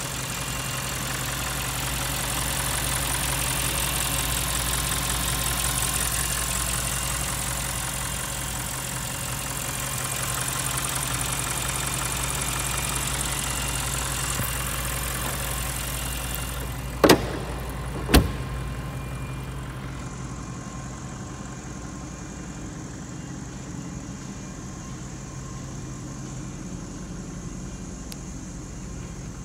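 2017 Audi RS7 performance's twin-turbo V8 idling steadily. A little past halfway come two sharp knocks about a second apart, and after them the idle sounds duller.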